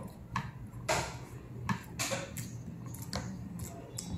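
Eating utensils clinking and scraping against a plate or bowl in a series of short, irregular knocks during a meal.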